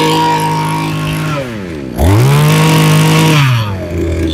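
Mitsubishi TB26 two-stroke brush cutter engine revved high on the throttle, let fall back, then revved up again sharply about two seconds in and let drop toward idle near the end.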